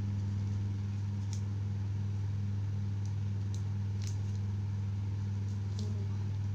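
A steady low hum, with a few faint, brief clicks as scissors snip the tape wrapping a small phone camera module.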